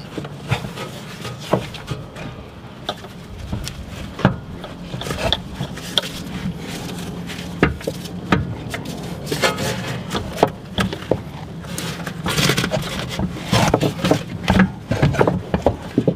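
Scattered knocks, scrapes and rubs of a long steel pry bar against the rear suspension of a BMW 7 Series, as the suspension is levered down to line up the new air shock absorber's bolt. A steady low hum runs underneath, and the scraping gets busier toward the end.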